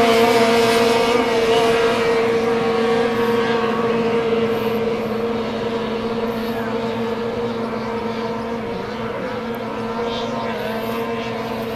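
Small racing hydroplane's engine running at speed: a steady, high-pitched drone that slowly fades as the boat pulls away.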